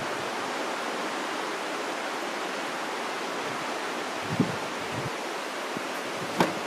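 Steady outdoor hiss, with a few soft knocks, the sharpest near the end.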